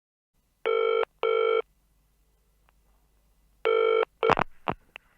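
Telephone ringing in the British double-ring pattern: two short rings, a pause of about two seconds, then one more ring cut short by a few sharp clicks as the answering machine picks up.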